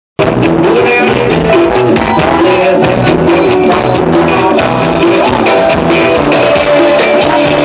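A Thai ramwong dance band playing, with a steady drum beat under a melodic line.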